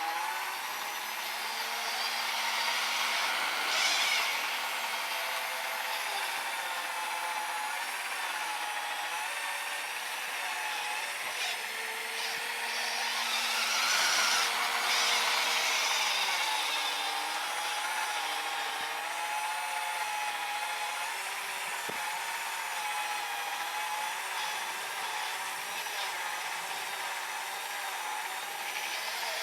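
Small electric motor of an RC snowblower, a brushed 550 driving the auger, whining steadily over a rushing hiss, its pitch drifting up and down as the load changes. The hiss swells twice, about four seconds in and again around fifteen seconds.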